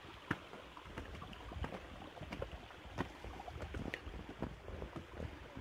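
Footsteps on a stone and gravel path with phone-handling noise: irregular soft clicks and scuffs over a low wind rumble.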